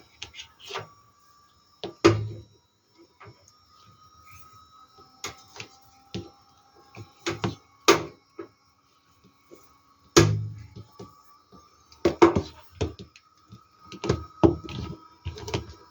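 Irregular knocks, clicks and rustles of a hair dryer and its power cord being handled and coiled, over faint background music.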